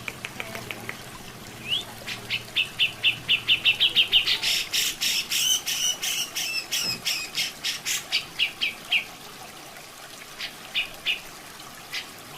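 Grey-cheeked bulbul (cucak jenggot) giving a rapid, loud chattering run of sharp repeated notes, about six a second, building up then tapering off, with a few more notes near the end. Trickling water runs steadily underneath.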